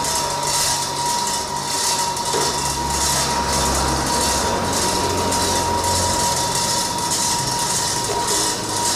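Stone crusher machine running, with a hissing clatter repeating about twice a second over a steady hum and a steady high whine.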